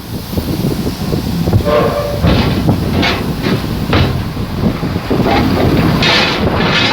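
A heavy bus rumbling as it drives slowly up the loading ramp onto a ferry, with irregular knocks and clanks as it rolls over the ramp.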